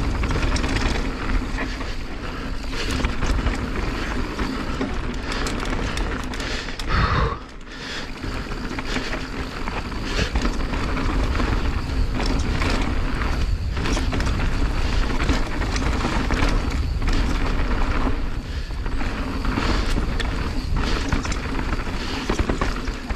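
Mountain bike descending a loose, dry dirt trail at speed: wind buffeting the helmet or bar microphone, tyres rolling and skidding over loose dirt, and the bike rattling and knocking over bumps. The noise drops away briefly about seven and a half seconds in, then picks back up.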